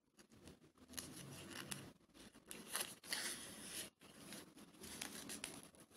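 Faint, irregular rustling of grosgrain ribbon being handled and hand-sewn, with the thread drawn through it and a few soft ticks.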